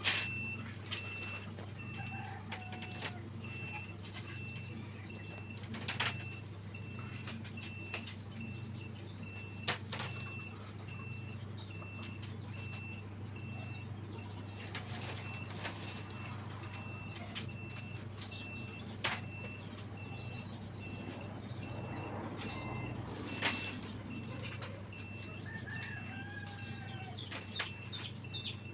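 Steady low hum of an incubator's fan and motor, with a faint high electronic beep pulsing on and off at an even pace. Occasional sharp clicks of eggs and plastic trays being handled, and a few faint short calls that sound like chickens.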